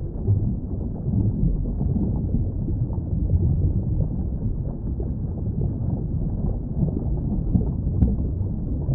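Underwater ambience: a steady, muffled low rumble with churning swells, all the higher sound cut away as it is when heard with the head under water.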